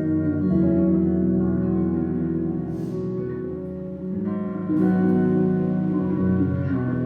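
Background music: acoustic guitar playing sustained chords.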